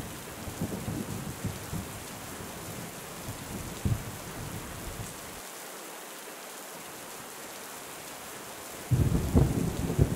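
Steady heavy rain with thunder: low rolling rumbles for the first few seconds and a short clap about four seconds in, then rain alone, then a loud rumble of thunder breaking in near the end.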